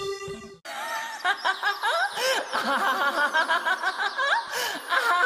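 The electronic track stops. From about half a second in comes snickering laughter: a fast run of short cackles that rise and fall in pitch.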